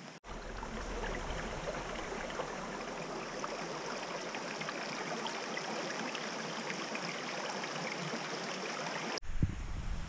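Shallow, rocky forest creek babbling over stones: a steady rush of running water. It cuts off abruptly near the end and gives way to a few low thumps on the microphone.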